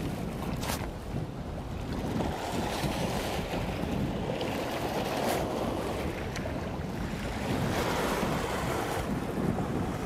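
Strong wind buffeting the microphone over the wash of sea waves against the rocks: a steady rushing noise that swells and eases.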